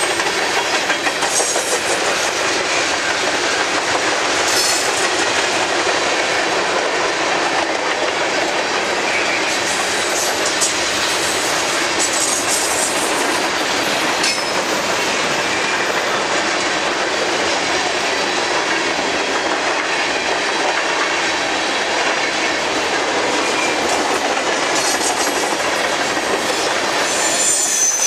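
Freight cars of a passing train (tank cars, a covered hopper and a boxcar) rolling by close at hand: a steady, unbroken rumble and rattle of steel wheels on the rails.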